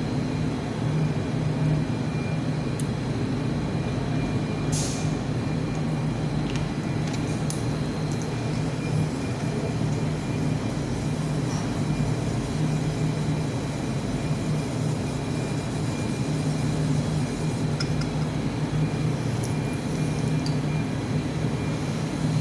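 Steady low machine hum with a faint high whine, unchanging throughout. A few light clicks of plastic bottles and a glass beaker being handled, the clearest about five seconds in.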